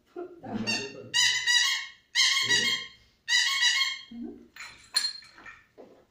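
A plastic toy trumpet blown three times, each a buzzy honk of about a second at a steady pitch. Near the end comes a faint metallic jingle of a small shaken toy.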